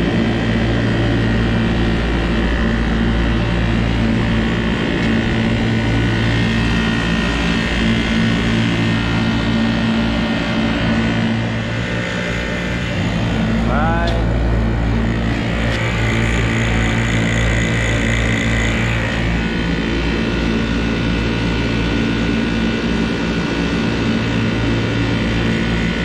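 HVAC vacuum pump running with a steady, loud motor hum, pulling a vacuum on the refrigerant system through the manifold hoses. About halfway through comes a brief rising squeak and a click.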